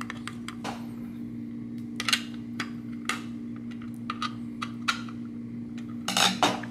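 A screwdriver driving the rear screws into a small plastic inclinometer housing: scattered light clicks and scrapes, with a louder scraping cluster near the end, over a steady low hum.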